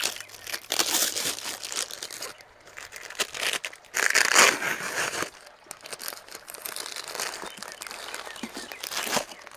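Plastic flower sleeves crinkling and rustling as wrapped rose bunches are handled and pulled open in a cardboard box, with a louder burst of crackling about four seconds in.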